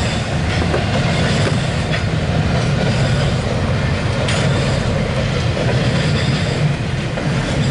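Intermodal freight train of double-stack container cars rolling past: a steady rumble of steel wheels on rail, with a few sharp clicks about two and four seconds in.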